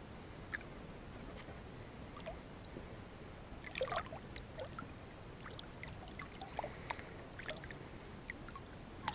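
Quiet lapping and small splashes and drips of lake water around a hand holding a musky in the water to revive it, with a slightly louder splashy flurry about four seconds in.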